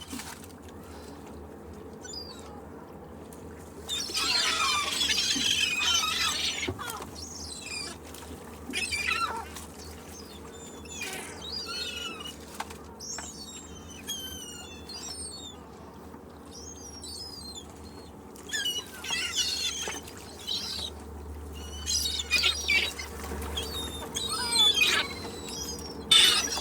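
Seagulls calling over and over, with short sliding squawks and cries. About four seconds in, several birds call at once in a dense burst, then single calls come every second or so over a low, steady background.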